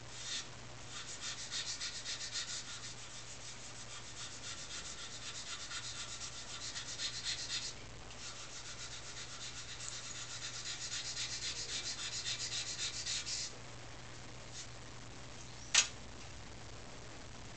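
Charcoal scratching across drawing paper in quick, short strokes, in two runs with a pause of about two seconds between them. A single sharp click follows near the end.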